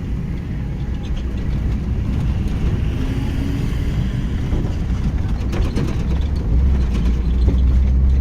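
Low rumble of a motor vehicle's engine, getting louder about six and a half seconds in.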